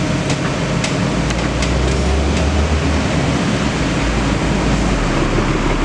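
Kobelco SK200 excavator's diesel engine running steadily, mixed with heavy wind buffeting the microphone. A few faint clicks come in the first couple of seconds.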